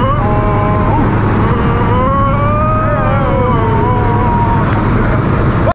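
Loud steady engine and propeller drone heard inside a skydiving jump plane's cabin, with a voice holding one long, slowly rising and falling shout over it. It cuts off suddenly just before the end.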